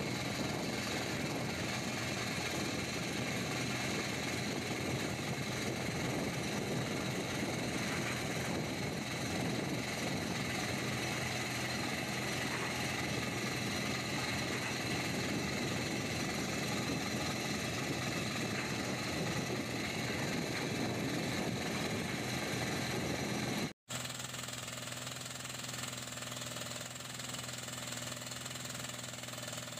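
Furukawa PCR 200 pneumatic crawler rock drill hammering a blast hole into rock, a steady rapid pounding over an engine drone. A brief dropout about three-quarters through, then the drilling goes on a little quieter.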